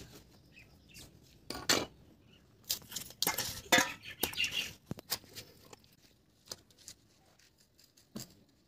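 An axe blade striking and splitting an ash gourd, a sharp blow at the start and another about two seconds in, then a cluster of knocks and scraping as knives cut through the gourd's pieces, with a few faint clicks near the end.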